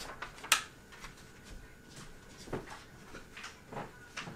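A sharp knock about half a second in, then a few soft taps and rustles over quiet room tone with a faint steady high tone.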